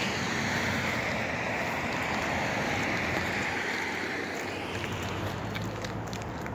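Road traffic on the adjacent road: a rush of tyre noise that builds and then fades away about five seconds in, as a vehicle passes. Footsteps on the paved path tick faintly near the end.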